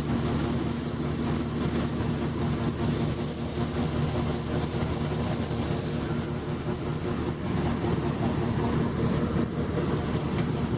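John Deere 6620 combine's six-cylinder diesel engine running at a steady speed, with an even machine hum.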